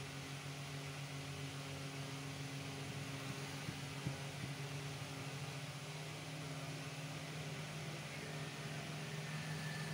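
A steady low hum, with two light clicks about four seconds in as a screwdriver works inside a marble cutter's metal motor housing.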